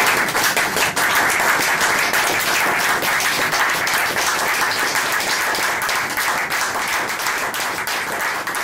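An audience applauding steadily, many hands clapping at once, easing off slightly near the end.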